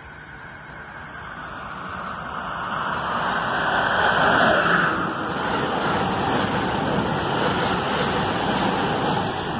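Amtrak passenger train led by an ACS-64 electric locomotive passing through a station at speed. A rushing sound swells as the locomotive nears and peaks as it goes by about four seconds in, then holds as a steady loud rush of wheels and air while the cars stream past.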